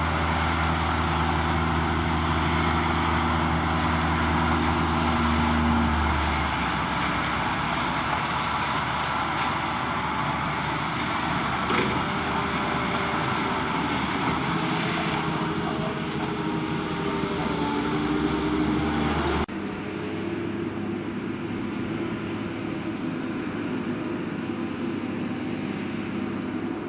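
Potato-harvesting machinery running: heavy diesel engines of harvesters and tractors, steady, with the engine note changing about six seconds in. Near two-thirds of the way through the sound cuts suddenly to a quieter engine.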